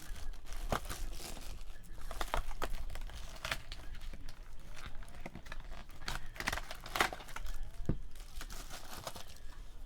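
Plastic wrapping on a trading-card box being torn open and crinkled, with irregular crackles and snaps.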